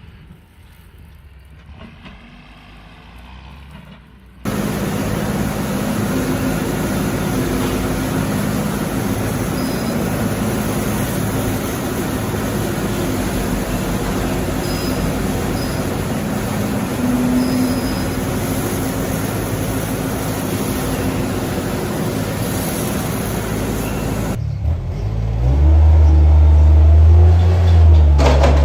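Engine-driven machinery running steadily, starting abruptly about four seconds in after a quieter stretch, then suddenly giving way near the end to a louder, deeper engine sound.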